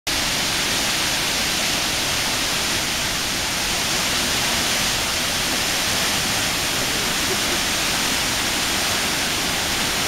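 Shiraito Falls: many thin streams of water spilling over a wide cliff face into a pool, heard as a steady, even rush of falling water.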